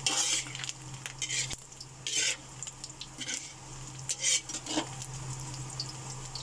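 Metal spatula scraping and stirring pork pieces around a wok, about six strokes roughly a second apart, over a steady sizzle. The pork is frying in its own rendered fat as it browns.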